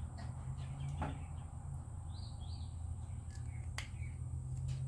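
A couple of sharp clicks from a hex driver and hard plastic RC axle parts being handled, over a steady low hum, with a pair of short bird chirps about two seconds in.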